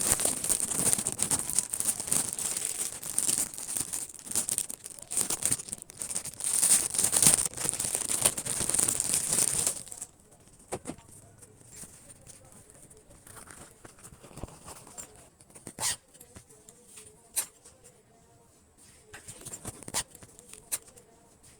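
Packaging being torn and crinkled by hand: dense crackling and tearing for about ten seconds, then quieter, with scattered light taps and rustles.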